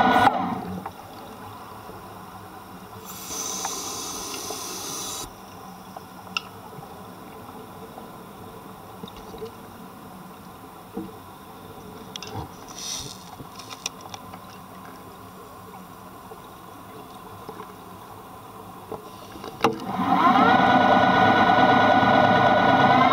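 Muffled underwater ambience picked up by a camera housing on a scuba dive. A diver's breathing hisses for about two seconds early on, with a few scattered clicks and a short burst of bubbles around the middle. Background music comes back loudly near the end.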